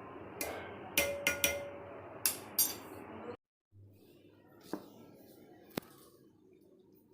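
Kitchen utensils and crockery clinking: a quick run of about six sharp clinks in the first three seconds, one ringing on briefly. After an abrupt cut come two softer, isolated clinks.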